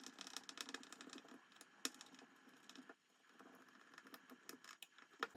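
Faint, irregular small clicks and ticks of M3 screws being screwed down into the carriage-lock part, with a sharper click about two seconds in and another near the end.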